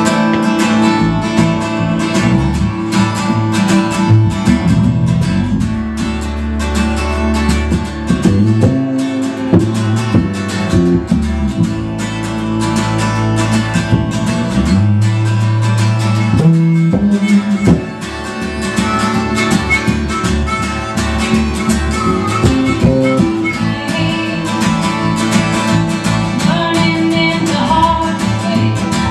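Live band music led by a strummed acoustic guitar, keeping a steady rhythm.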